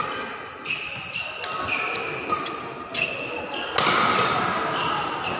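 Badminton rally: sharp racket hits on the shuttlecock, several in a row with the hardest about four seconds in, and shoes squeaking briefly on the court mat as players change direction.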